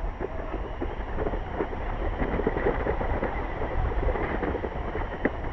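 Airflow from a paraglider in flight buffeting the microphone: a steady, uneven rush of wind noise, heaviest in the low rumble.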